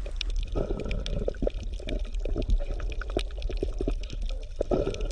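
Water sounds: irregular bubbling and crackling clicks over a steady low rumble.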